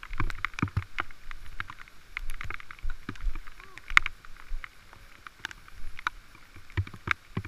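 Raindrops ticking irregularly on a helmet-mounted camera's case, many sharp taps at uneven intervals over a low rumble.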